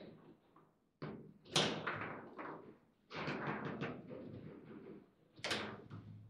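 Table football play: sharp knocks and clacks of the ball and the rod-mounted figures hitting each other, coming in quick clusters, the loudest about a second and a half in.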